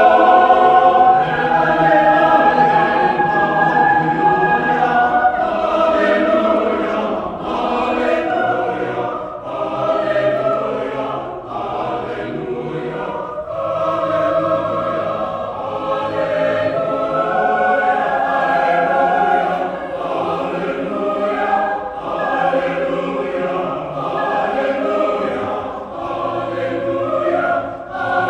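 A choir singing in several parts, holding chords and moving between them, with short breaks between phrases.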